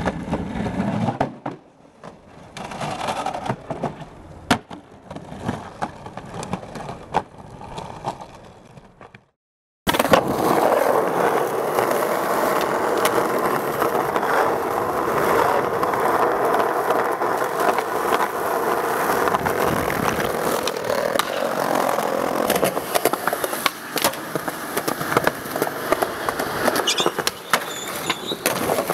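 Skateboard wheels rolling on concrete, with sharp knocks of the board during tricks. A brief cut to silence comes about nine seconds in; after it, skateboard wheels roll steadily over street pavement for the rest of the time, a dense, loud rolling noise.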